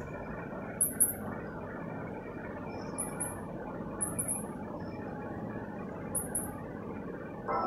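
Mouse squeak sound effects from a cat-game video playing through a phone's speaker: short, very high squeaks in quick pairs, four times, over a steady hiss. Music starts near the end.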